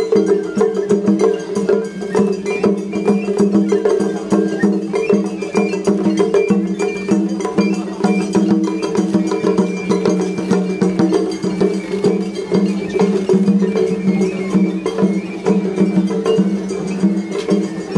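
Japanese festival hayashi music played on a float: a small hand gong clanging in a fast, even rhythm over drums, with short high held notes above.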